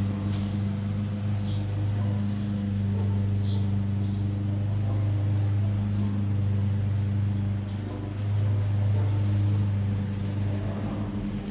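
Steady low mechanical hum with a pitched drone, over which a few faint light clicks are heard.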